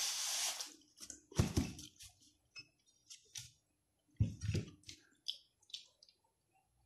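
Paper napkin rustling as it is rubbed over the mouth, then dull knocks of a dinner plate and napkin being handled and set down on the table, about a second and a half in and again about four seconds in. Small mouth clicks follow as a glass is drunk from near the end.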